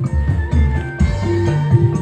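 Music played loud through a sound system's speaker stack with 18-inch bass boxes during a sound check. It has a heavy bass line that changes note several times a second, a melody above it and a steady beat.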